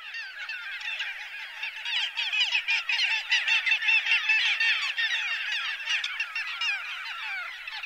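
Many little gulls calling at once: a dense chorus of short, repeated, overlapping call notes.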